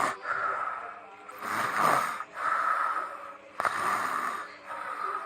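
A person snoring: a run of rasping breaths in and out, roughly one each second.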